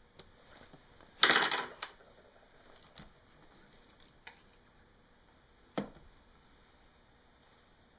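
Small plastic clicks and taps from handling the laptop's screen bezel: a quick run of clicks about a second in, a couple of single taps, then one sharper knock near six seconds.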